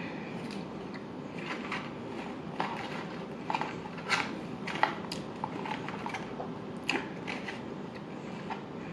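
A person chewing fast food close to the microphone, with irregular short mouth smacks and clicks, the sharpest about four and five seconds in.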